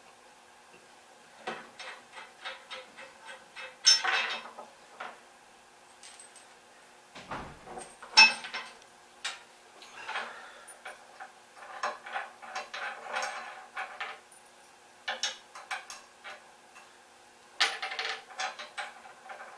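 Steel bolts, lock washers and nuts clinking and clicking as machine hardware is fitted and tightened, in irregular clusters of small metal taps, with louder metal knocks about four and eight seconds in.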